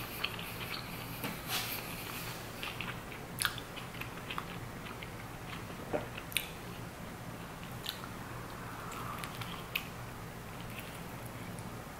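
A person chewing and biting into toast topped with barbecue jackfruit, close to the microphone, with irregular crunches and wet mouth clicks. A low steady hum runs underneath.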